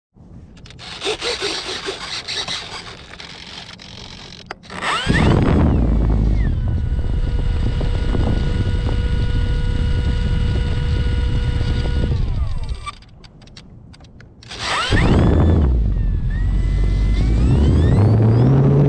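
E-flite Turbo Timber Evolution's electric motor and propeller, preceded by handling rustle and scraping. About five seconds in the motor spools up with a rising whine and runs at a steady pitch. It throttles down around twelve seconds, then spools up again with rising pitch near the end.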